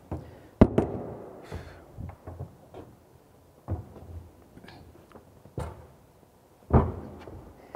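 Several irregular knocks and clunks of plumbing tools and fittings being handled, the loudest about half a second in and another near the end.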